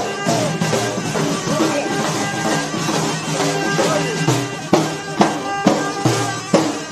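Eastern Moroccan Aarfa folk music: large bendir frame drums struck in a steady beat under a wavering melody line, with sharp drum strikes about twice a second in the second half.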